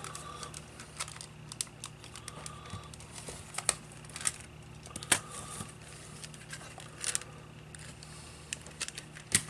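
Scattered sharp clicks and taps of small plastic and metal parts being handled and seated as a Sony WM-FX52 cassette Walkman is fitted back together, with some faint crinkling.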